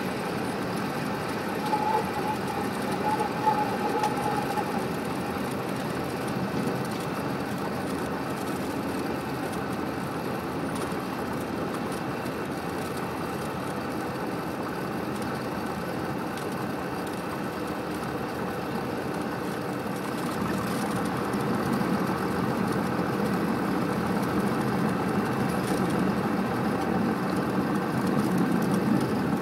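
Cessna 172's piston engine and propeller droning steadily, heard inside the cabin on a landing approach. The drone gets louder about two-thirds of the way through.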